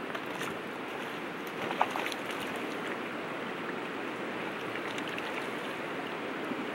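River water running steadily, an even rushing, with one short tap about two seconds in.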